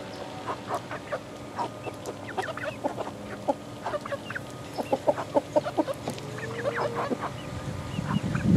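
A flock of young chickens, about eleven weeks old, clucking and peeping in many short overlapping calls over a faint steady hum. A rush of low noise builds near the end.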